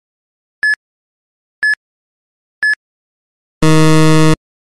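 Quiz countdown timer sound effect: three short high beeps a second apart, then a harsh buzzer for just under a second signalling that time is up.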